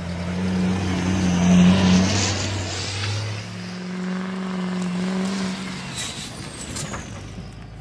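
Joint Light Tactical Vehicle's V8 turbodiesel engine running as it drives over rough gravel, with tire and gravel noise. The engine note swells twice, loudest about two seconds in, then fades away near the end.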